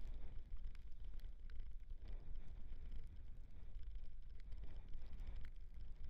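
Wind buffeting the microphone over the steady low rumble of a dog scooter's tyres rolling on a dirt track, with scattered small ticks.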